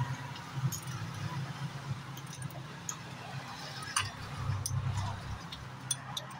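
Scattered metallic clicks and clinks of a hand tool on the turbocharger fittings, a few irregular ticks over a steady low hum.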